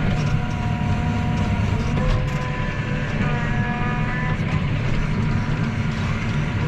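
Tractor engine running steadily under load while pulling a plough, with rattle and a few faint whining tones over the low drone.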